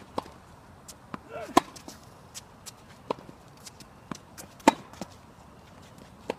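Tennis balls struck with rackets in a rally, a sharp hit about every second and a half, with fainter ball bounces and footfalls between the hits.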